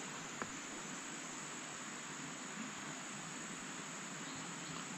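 Steady drone of insects in tropical forest, with one faint click about half a second in.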